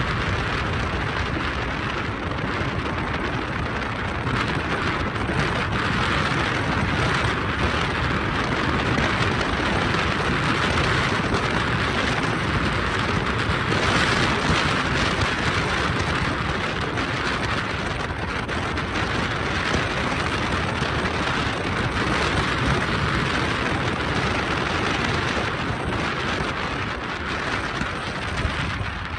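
Steady rushing of a car driving on a paved road, tyre and wind noise with a low rumble, easing off slightly near the end.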